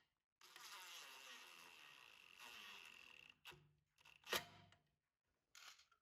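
Faint buzz of a small power tool motor running for about three seconds, then two sharp knocks about a second apart.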